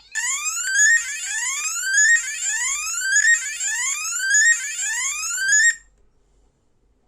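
Electronic bike horn sounding a siren pattern: five rising whoops, each climbing for about a second, over a steady shrill high tone, then cutting off abruptly.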